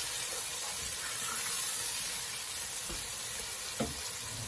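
Onions and tomatoes frying in oil in a pot, a steady sizzling hiss. Two light knocks near the end.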